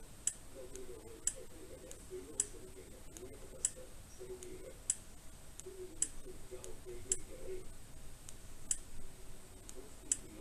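Small plastic buttons on a budget action camera clicking as its on-screen menu is stepped through: single sharp clicks about once a second, unevenly spaced.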